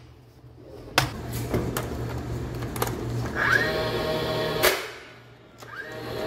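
DeWalt 18-gauge cordless brad nailer: its motor whines up rising in pitch and it fires a nail with a sharp crack about four and a half seconds in, then starts winding up again near the end. A single sharp click about a second in.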